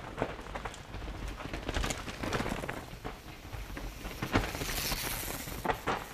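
Mountain bike coming down a forest dirt trail toward the microphone: tyres crackling over pine needles and twigs, with scattered knocks and rattles, a little louder from about four seconds in.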